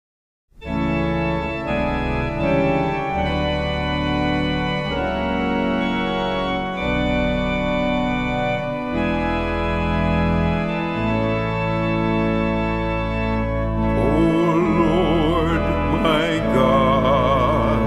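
Organ playing slow, held chords, opening a hymn accompaniment; the chords change every second or so. About three-quarters of the way through, a high melody line with strong vibrato joins over the organ.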